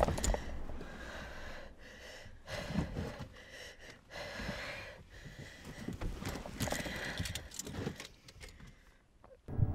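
Soft rustling, clicks and knocks of a person settling into the driver's seat of a parked car, heard inside the closed cabin. It goes almost silent near the end.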